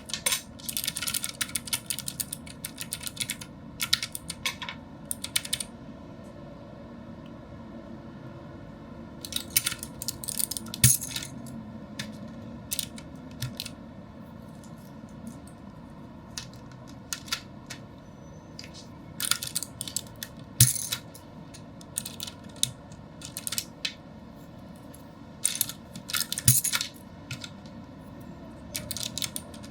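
Keychron K6 mechanical keyboard with clicky blue switches being typed on: bursts of sharp clicks lasting a few seconds each, separated by pauses of several seconds.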